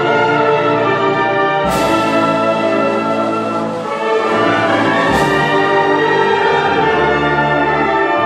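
Wind orchestra playing long held chords. Two sharp crashes ring out, one about two seconds in and another about five seconds in, each fading away under the chord.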